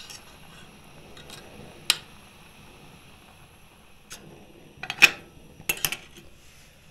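Metal cooking utensils clinking and knocking against a pot, a few separate sharp clacks with the loudest about five seconds in, over a faint steady hiss.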